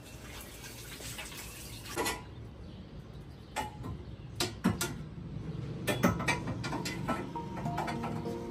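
Scattered clicks and knocks of kitchen handling, utensils and dishes being set down and moved, over a low steady background.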